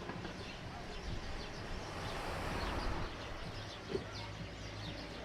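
Birds chirping in quick, repeated short calls over a low steady hum of outdoor background noise.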